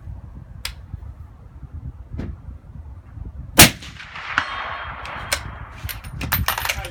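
A single suppressed shot from a Remington 700 AAC/SD bolt-action rifle with a Silencerco Harvester 30 suppressor, firing a supersonic 147-grain FMJ round. It comes as one sharp crack about halfway through, then echoes away over a couple of seconds. Near the end comes a quick run of metallic clicks and clacks, typical of the bolt being worked.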